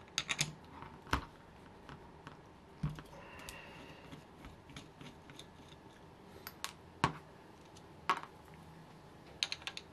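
Light metallic clicks and taps as a glow plug wrench is fitted to and turned on the cylinder head of a Saito FA-90TS four-stroke twin model engine to unscrew a glow plug, and the tool and plug are set down on the mat. It comes as a handful of sharp, separate clicks spread through, the loudest about seven seconds in.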